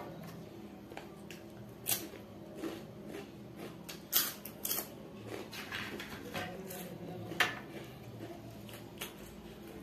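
Eating by hand: fingers scraping rice off a steel plate and chewing, with a few sharp crunches, the loudest near the end.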